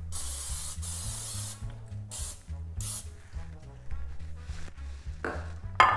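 Cooking spray hissing onto a glass baking dish: one long spray of about a second and a half, then two short spurts. A couple of sharp knocks near the end.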